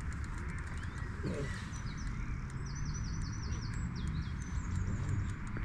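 Wind buffeting the microphone in a steady low rumble, with a small bird singing a quick run of repeated chirps about two and a half seconds in.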